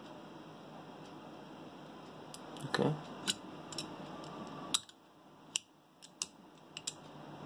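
Precision optical fiber cleaver being worked by hand to cleave a fiber: a short scrape about three seconds in, then a series of sharp metal clicks as the clamp lid is closed and the blade snaps across, the loudest click a little before midway.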